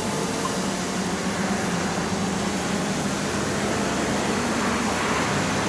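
Hubsan H501M quadcopter hovering overhead, its propellers giving a steady hum with one constant low tone.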